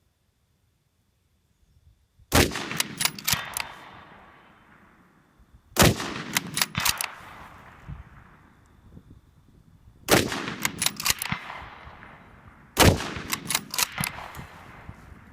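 Four rifle shots from a muzzle-braked 6mm Creedmoor bolt-action rifle, spaced a few seconds apart. Each shot is followed by a fading echo and several sharp clicks.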